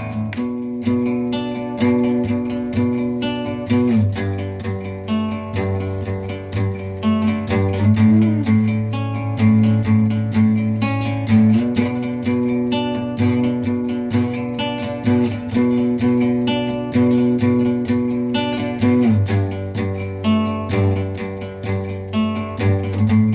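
Acoustic guitar strummed steadily, chords ringing under quick repeated strokes; the strumming gets a little louder about seven seconds in.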